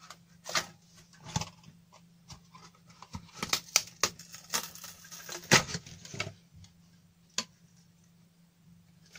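Handling noises from taking apart a power supply: clicks, light knocks and rustling as the metal shield with its plastic insulating sheet and the case half are moved about. The busiest knocks come a little past halfway, then it goes quieter with one last click, all over a faint steady low hum.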